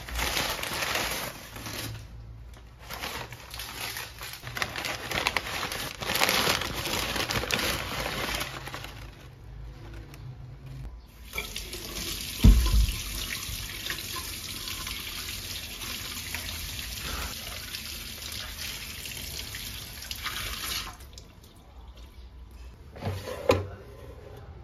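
Kitchen tap running into a stainless steel sink while sweet potatoes are rinsed and rubbed by hand under the stream. There is a single low thump partway through.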